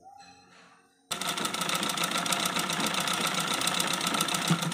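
Zenith treadle sewing machine stitching, starting about a second in: a fast, even clatter that holds steady.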